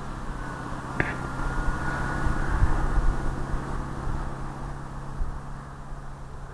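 Electric RC airplane's brushless motor and propeller whining faintly in flight, with wind rumbling on the microphone. There is a sharp click about a second in.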